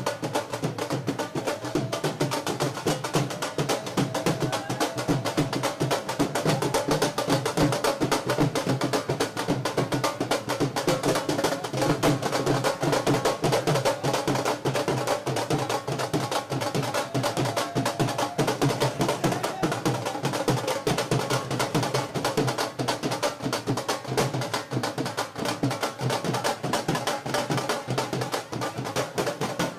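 Dhol drum played in a rapid, unbroken beat, with crowd voices beneath it.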